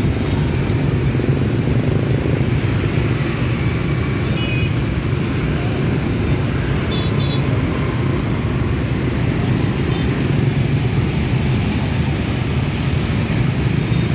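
Dense motor-scooter and car traffic running through an intersection: a steady engine and tyre drone, with a few brief high beeps about four and a half and seven seconds in.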